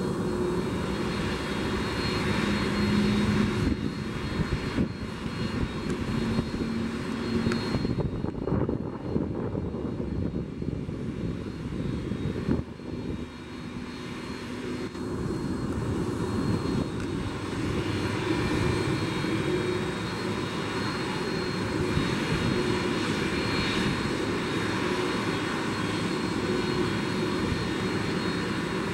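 Airbus A300-600ST Beluga's General Electric CF6-80C2 turbofan engines running at low power on the ground, a steady whine over a rumble that eases off for a few seconds near the middle.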